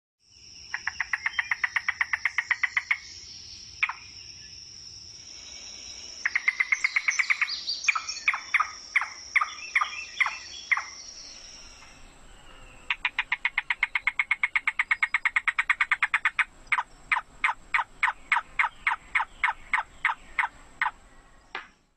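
Field recording of a yellow-billed cuckoo calling: three runs of rapid, knocking notes, the last two slowing into separate, spaced-out notes at the end. A steady high-pitched hum sounds in the background through the first half.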